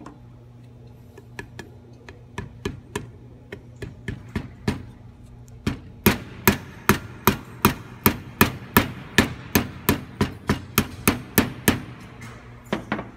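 Ball-peen hammer lightly tapping a new rear hub seal into a bus wheel hub to seat it snug. Scattered light taps come first, then about six seconds of steady strikes, roughly two or three a second, and a couple more near the end, over a steady low hum.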